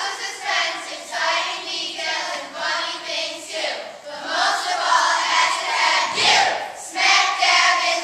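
A group of young voices singing together, loud and continuous with held notes.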